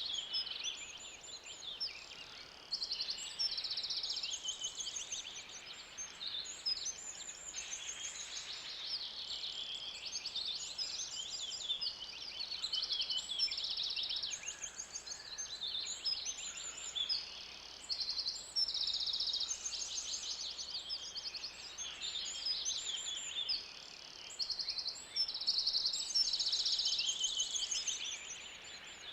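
Forest ambience: a dense chorus of birds giving high-pitched, rapid trills and chirps that overlap one another without a break, over a faint background hiss.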